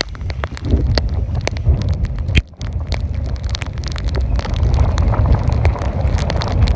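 Wind buffeting the microphone in a heavy low rumble, with scattered sharp taps and clicks throughout.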